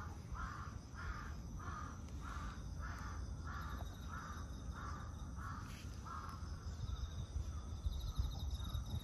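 A crow cawing in a steady series of short caws, about two a second, that dies away about six seconds in.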